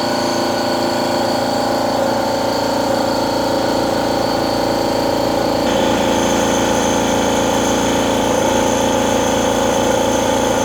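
Tuxing two-cylinder high-pressure (4500 psi) air compressor running steadily under load. Its tone shifts abruptly about halfway through.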